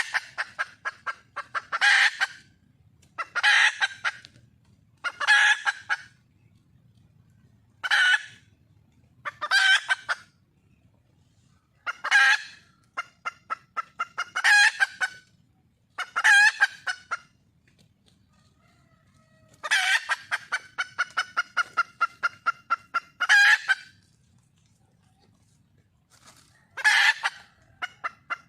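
Red junglefowl hen calling for a male: bursts of rapid clucks every couple of seconds, with a longer run of about four seconds some two-thirds of the way through.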